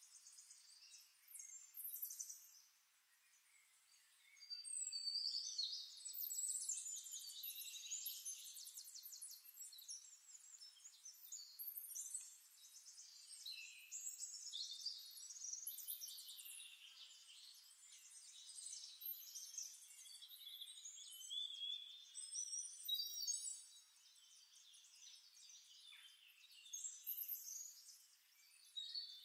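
Faint, high-pitched birdsong: overlapping chirps and quick trills that come and go throughout.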